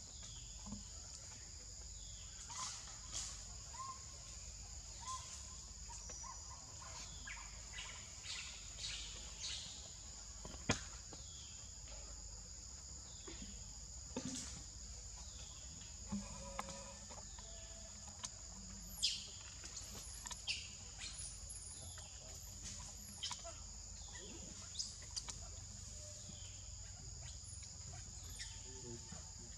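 Steady high-pitched insect drone made of two held tones, with short chirps and calls scattered through it and a few sharp clicks.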